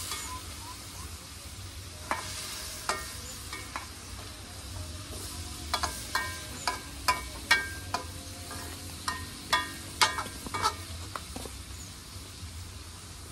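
A metal spatula stir-frying vegetables in a wok, clanking and scraping against the pan many times while the food sizzles. The clanks come thickest and loudest in the middle of the stretch, over a steady low hum.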